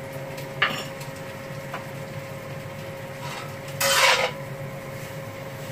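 Spatula scraping against a wok while stirring chunks of taro and pork: a short scrape about half a second in and a longer, louder one about four seconds in.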